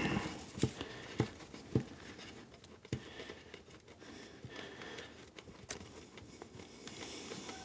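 Faint, irregular clicks and light rubbing as a ball-on-a-spring cat toy is twisted by hand into the threaded hole of a felt-covered cat tree base.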